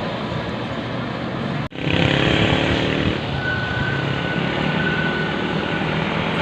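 Bus and road traffic passing with engine noise. About two seconds in, after an abrupt cut, a bus engine passes close and louder for about a second. A thin high steady tone follows for a couple of seconds.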